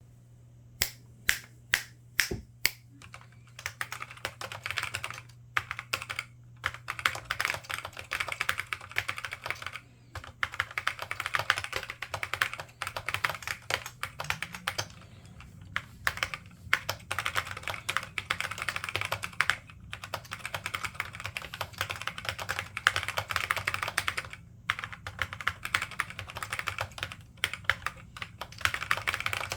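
Typing on a laptop keyboard with Alps SKFM switches and ABS doubleshot keycaps: a handful of single key presses at first, then fast typing in runs broken by short pauses.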